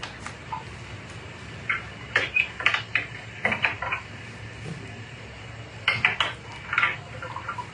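Small hard objects clicking and rattling as someone rummages through them by hand, in two bursts of quick clicks with a pause between.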